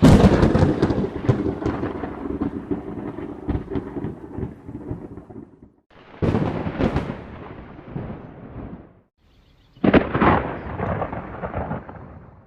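Three thunderclaps: each starts with a sudden sharp crack and rumbles away over a few seconds. The first is the loudest and rolls on longest. The second comes about six seconds in and the third about ten seconds in, with a short near-silent gap before each.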